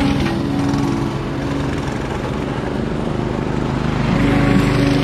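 A mini bike's small engine running as the bike rides past and away down a road, growing a little louder again about four seconds in.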